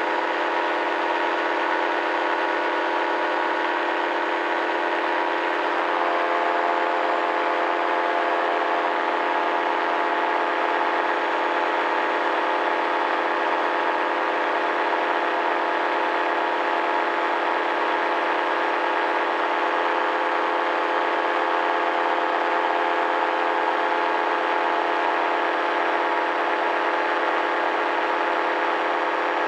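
Paramotor's two-stroke engine and propeller running steadily at cruise power in flight: a constant, even drone.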